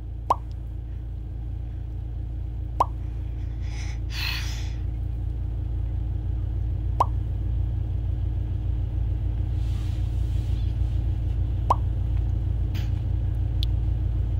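Steady low rumble of road and engine noise inside a moving car's cabin, with four short plops a few seconds apart.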